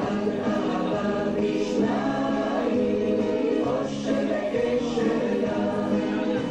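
Recorded Israeli folk dance song, a choir singing over the accompaniment.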